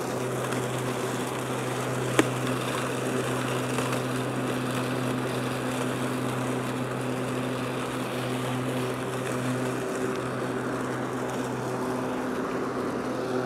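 Powersmart 26-inch 80-volt cordless self-propelled lawn mower running, its twin blades spinning with a steady hum as it cuts grass and vacuums leaves into its bag. A single sharp click about two seconds in.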